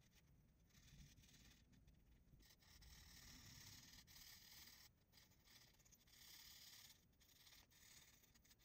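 Faint scratching of a felt-tip colour-reveal marker's nib rubbing back and forth across paper, in strokes of a second or so with short pauses between.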